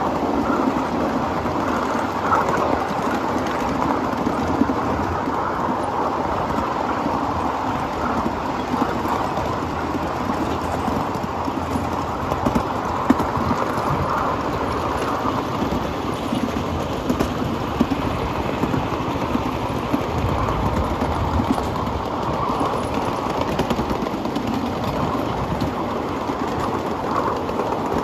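Steady rolling noise of a 7.5-inch gauge live steam train's cars running along the rails, heard from aboard a riding car, with a few light clicks.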